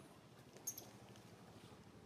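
Near silence: faint outdoor ambience, with one short, sharp click about two-thirds of a second in.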